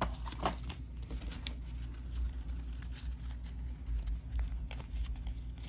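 Stack of game cards being handled and sorted through: a scatter of light clicks and slides, over a low steady hum.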